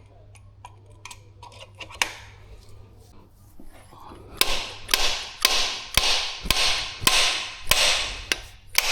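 Light clicks of tool handling, then from about four seconds in a run of sharp metal-on-metal hammering strikes, about two a second, as a puller tool is worked to draw a tight main bearing cap off its dowels in an Audi EA839 V6 block.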